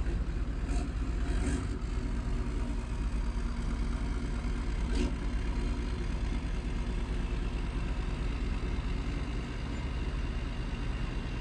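A vehicle engine running steadily at a low idle, with one short click about five seconds in.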